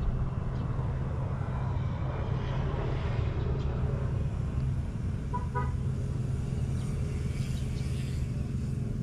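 Steady low engine drone, with a short honk-like toot of two or three quick notes about halfway through.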